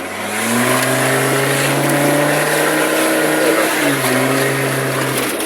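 Land Rover engine revving hard as the driver floors it: the pitch climbs over the first second and then holds, dips briefly about four seconds in, and picks up again.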